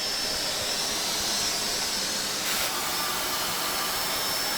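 Vacuum cleaner running steadily, a hissing rush of air with a faint high whine, briefly louder about two and a half seconds in.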